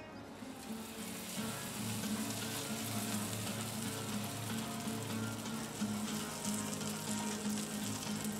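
Melted animal fat sizzling in a nonstick frying pan as a cheese-filled flour-tortilla quesadilla is laid in and pressed down. The frying grows louder about a second in and then holds steady.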